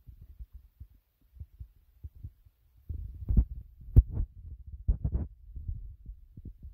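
Muffled low thumps and rustling right at the phone's microphone as the phone is handled. They grow busier about three seconds in, and a sharp knock about four seconds in is the loudest sound.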